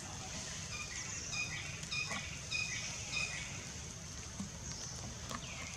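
Small bird calling in the background: a run of four short, evenly spaced high chirps from about a second in, and falling whistled notes near the end, over a steady low rumble.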